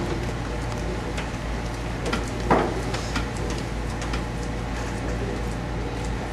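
Steady low hum of a church hall with scattered faint shuffles and clicks as people walk up the aisle, and one louder thump about two and a half seconds in.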